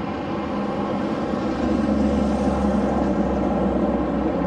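Steady engine drone with a low rumble that swells in the middle.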